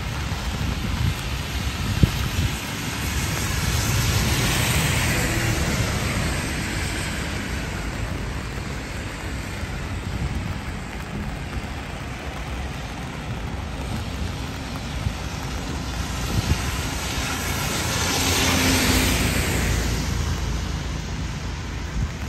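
Steady rain with the hiss of traffic on a wet road; two vehicles pass close by, one about four seconds in and one near the end, each swelling and fading away.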